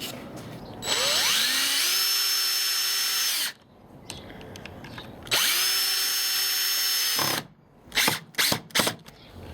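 Power drill driving 3-inch screws through a metal angle into a door jamb in two runs of a few seconds each, its whine rising as the motor spins up, then holding steady before cutting off. A few short knocks follow near the end.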